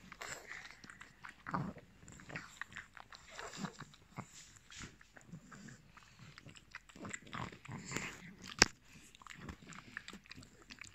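A dog nibbling and snuffling through another dog's fur close to the microphone: rapid, irregular small teeth clicks and snuffles, with one louder snap late on.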